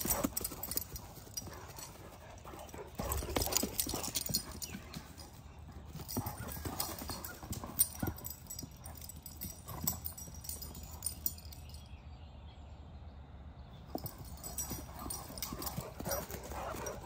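Two Great Danes play-fighting on grass: heavy paws thudding and scuffling in irregular bursts as they chase and lunge at each other.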